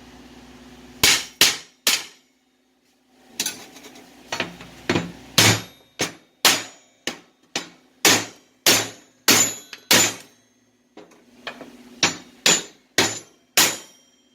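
Hammer striking steel over and over, about twenty sharp blows with a short metallic ring after each. Three come quickly together, then after a pause a run of one or two a second follows. It is the work of knocking at a weld that has just been rejected as bad.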